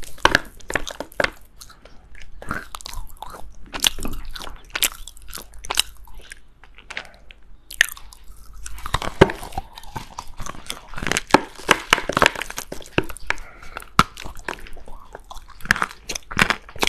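Dry lumps of china clay being bitten and chewed close to the microphone: a rapid, irregular run of sharp crunches and crackles. The crunching is thickest from about nine to thirteen seconds in, after a short lull.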